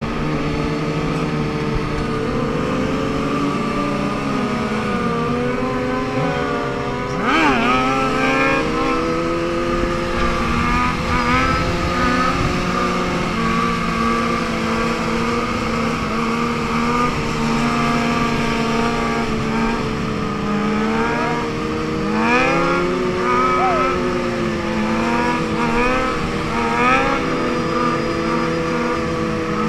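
Several sport-bike engines running together at steady revs, their pitch sliding up and down as riders work the throttle. Sharper revving rises come about seven seconds in and again from about twenty-two seconds, with quick throttle blips.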